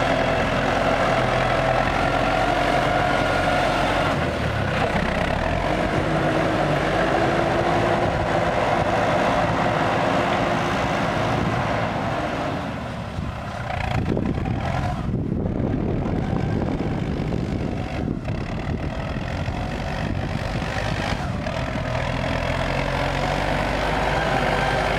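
CLAAS Talos 240 tractor's diesel engine running under load as its front blade pushes soil. The engine eases off about halfway through, then revs back up and runs on steadily.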